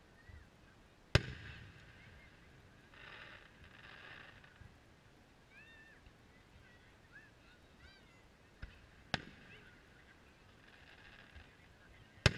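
Distant aerial firework shells bursting with sharp booms: the loudest about a second in, two smaller ones around nine seconds, and another just before the end. Between them come a few short rising-and-falling calls.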